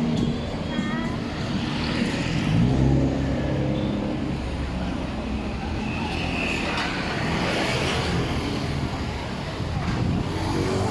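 Street traffic ambience: a motor vehicle engine passes close by about two to three seconds in, over a steady hum of traffic and scattered voices.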